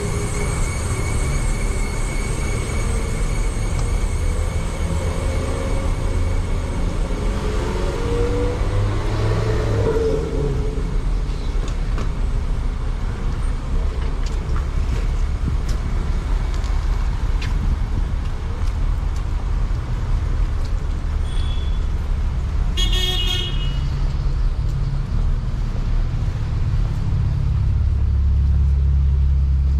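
Road traffic: vehicle engines rumbling as they pass, with a wavering engine note in the first ten seconds or so. A car horn gives one short toot about three-quarters of the way through, and a heavier rumble swells near the end.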